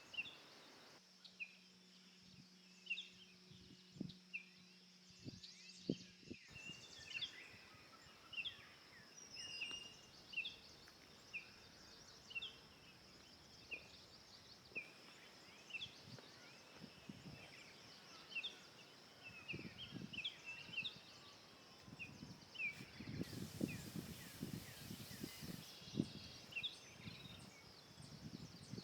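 Forest ambience: birds chirping in short, repeated notes, over a steady high-pitched drone. Scattered soft knocks and rustles run through it and come thicker near the end.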